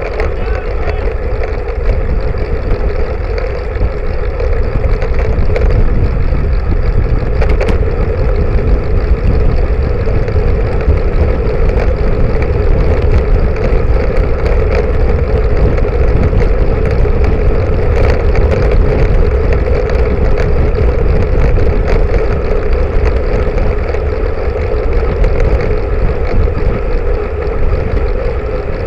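Wind buffeting and road noise picked up by a rear-facing camera mounted on a moving road bicycle: a steady low rumble with a continuous hum over it.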